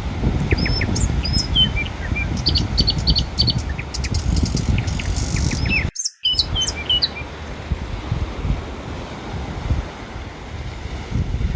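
Small birds chirping in quick short notes over a steady low rumble of surf and wind on the microphone. The chirping stops about seven seconds in, and the sound cuts out completely for a moment just before.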